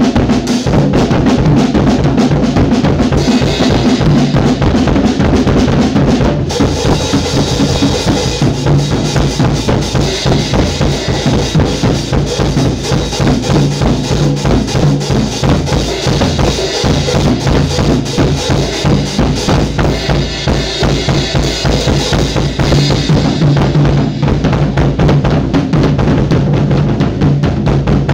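Drum kit played in a solo: a fast, unbroken run of bass drum and snare strokes, with brighter cymbal wash coming in now and then over a steady low ringing note.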